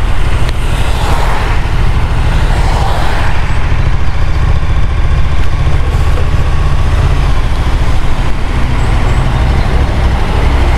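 Motorcycle running at low speed as it slows to a crawl, its engine and the wind rumbling heavily on the microphone.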